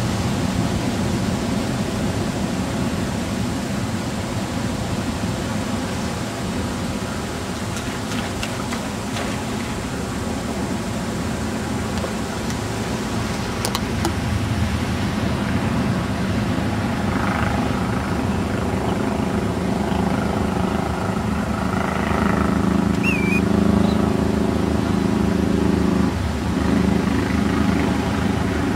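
Steady low engine rumble that swells into a louder drone in the second half. A short high chirp sounds near the end.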